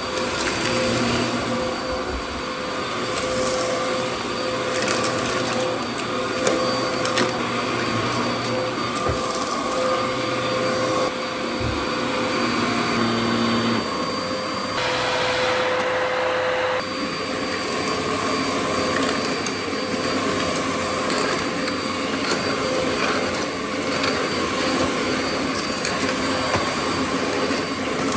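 Dyson DC07 All Floors upright vacuum cleaner running steadily while sucking up fine dust and grit, with scattered ticks of debris. Its tone shifts for a couple of seconds about halfway through.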